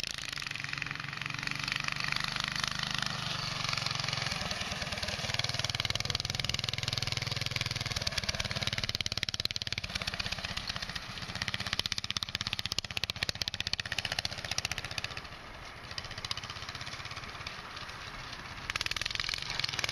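Go-kart's Predator 420cc single-cylinder engine running as the kart drives over grass, its pitch rising and falling with the throttle. The sound dips for a few seconds late on, then comes back up.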